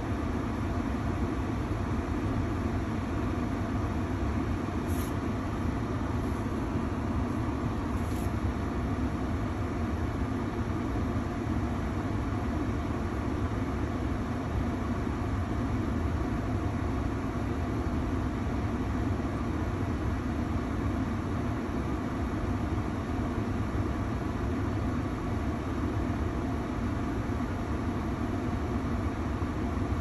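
Ford Maverick's cabin heater blower running on full, a steady rush of air from the dash vents.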